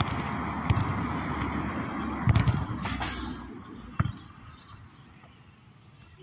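A football being kicked and thudding on artificial turf: several dull thumps, the last about four seconds in, over a steady rushing background noise that fades after about three and a half seconds.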